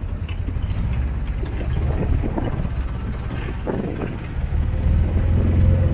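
Tuk-tuk riding through streets: steady low engine and road rumble, swelling louder near the end.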